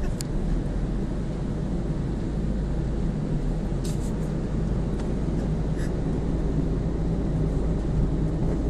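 Car's engine running, a steady low rumble heard from inside the cabin, with a few faint clicks.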